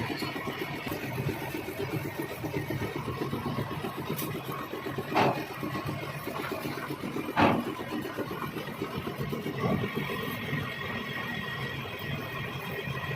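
Metal lathe running with a fast, even rattle, and two sharp metallic clanks about five and seven seconds in.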